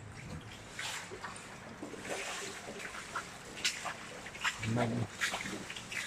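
Footsteps splashing and scuffing irregularly on the wet floor of a brick culvert tunnel, over a faint hiss of running water. A brief low voice sound comes about three-quarters of the way through.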